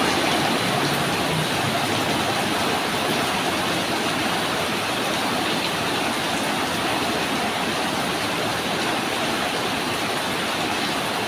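Steady heavy rain, a dense even hiss. A low vehicle engine hum fades out in the first second or so.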